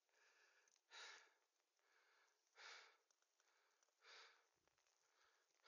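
Faint breathing of the person holding the phone, a soft puff about every second and a half.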